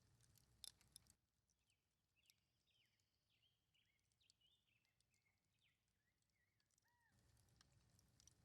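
Faint birdsong: a quick series of short chirps from about one second in, ending with a couple of curved whistled notes near the end, over a few sharp clicks at the start.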